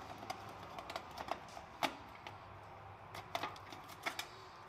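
Irregular metal clicks and light knocks from hands working on metal fittings under a coal forge, setting up the forge blower's air connection, with the loudest knock just under two seconds in.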